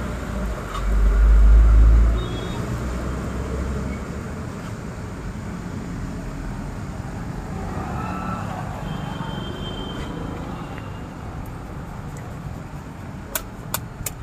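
Street background of road traffic, with a loud low rumble lasting about a second, starting about a second in, and a few sharp clicks near the end.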